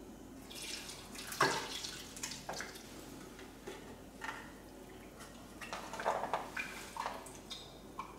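Milk poured from a saucepan into a glass dish through a strainer insert, splashing and dripping in irregular bursts. The loudest splash comes about a second and a half in.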